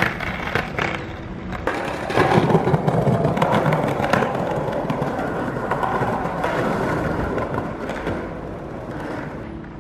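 Skateboard rolling over concrete paving: steady wheel noise with a few scattered clicks.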